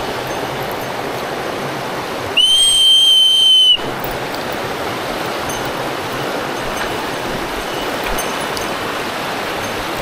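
A mountain stream rushing steadily. About two and a half seconds in, a loud high steady tone cuts in for about a second and a half, with the water sound gone while it lasts, then the stream returns.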